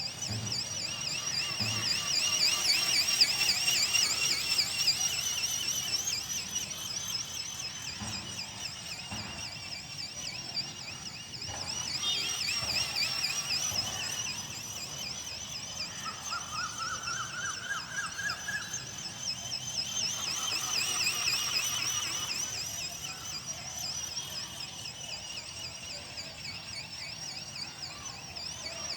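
Flapping-wing RC ornithopter in flight: its electric motor and gearbox whine at a high pitch that wobbles up and down with each wingbeat, giving a rapid, even warble that grows louder and fainter as the model flies past.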